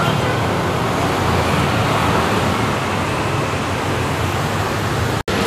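Steady street traffic noise, a continuous rumble and hiss with no single vehicle standing out. It cuts out for an instant near the end.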